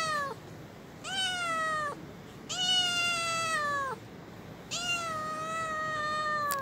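A young cat meowing: the end of one meow, then three long, drawn-out meows of about a second to a second and a half each, each dropping in pitch as it ends.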